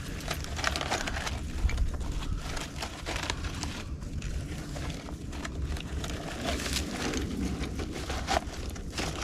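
Dry plant fibers and brittle bark crackling and rustling as they are handled and broken up by hand, with many irregular sharp crackles over a low rumble.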